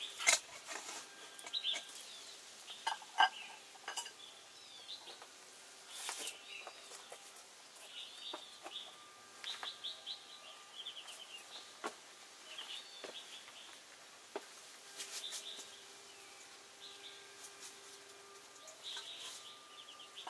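Small birds chirping in short, repeated phrases throughout. Over them come a few sharp clinks of metal camping cookware being set down and handled on rock, the loudest just after the start and about three seconds in.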